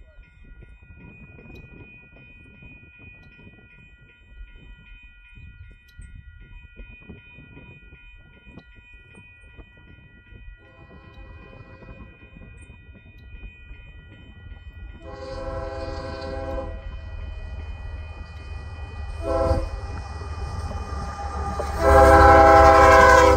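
Canadian Pacific diesel freight locomotives approaching a grade crossing, sounding a multi-note air horn in the crossing pattern: two long blasts, a short one, and a final long blast that is the loudest. The low diesel rumble grows as the train nears.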